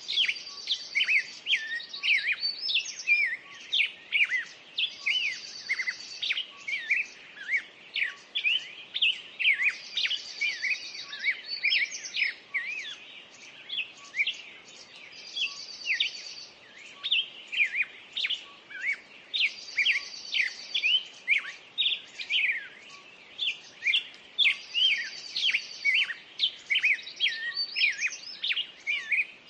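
Several wild birds singing together, a busy chorus of chirps and quick whistled sweeps, with a short high trill coming back about every five seconds.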